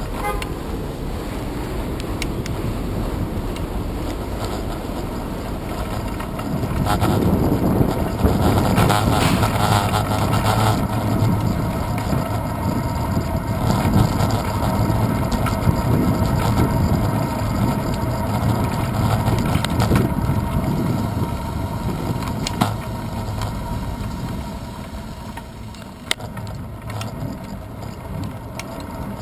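Wind and road rumble on a handlebar-mounted action camera on a moving bicycle. The rumble gets louder about a quarter of the way in and eases off near the end, with a few sharp knocks from bumps in the road.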